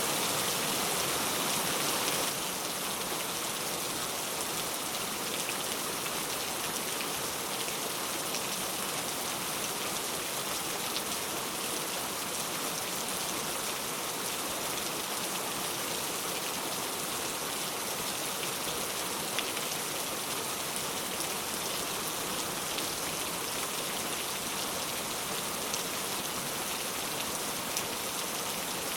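Steady rain falling, with occasional faint drop ticks. It is a little louder for the first two seconds or so, then drops slightly and holds level.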